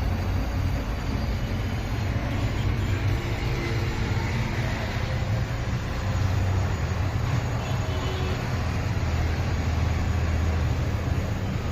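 A motor running with a steady low rumble.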